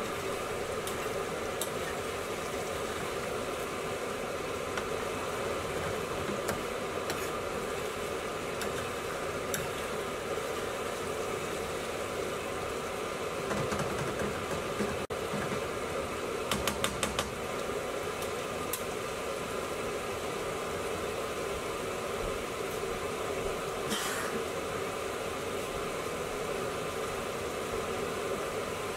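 Chicken vindaloo simmering in a pan on a gas hob at medium heat: a steady bubbling hiss. About halfway through come a few quick taps and scrapes of the spoon against the pan.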